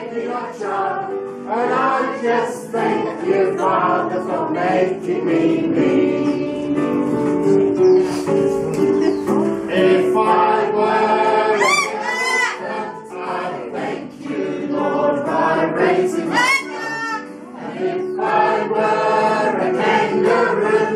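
A congregation singing a hymn together with musical accompaniment. A few short, high, rising calls cut through the singing, twice in quick succession about halfway through and once more a few seconds later.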